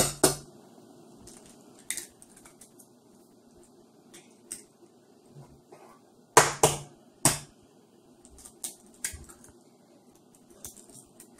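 Eggs being cracked on the rim of a bowl: scattered short, sharp taps and shell crunches, the loudest two close together a little past the middle.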